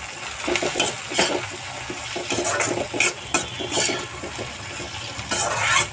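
Metal slotted spoon stirring and scraping vegetables in a metal kadhai, clinking against the pan over a steady sizzle of frying. The strongest scrapes come about a second in, around three seconds in, and near the end.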